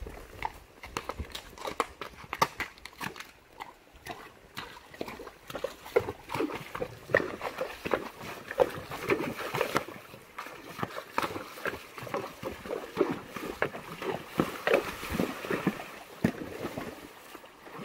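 Hoofbeats of a Tennessee Walking Horse mare moving over the ground: a steady, irregular run of many short knocks.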